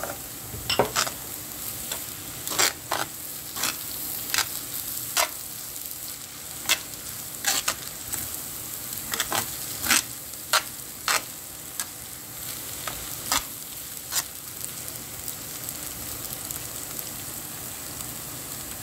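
Rice noodles sizzling in a hot pan while being tossed with metal tongs, the tongs clacking against the pan in irregular knocks that stop about three-quarters of the way through, leaving a steady sizzle.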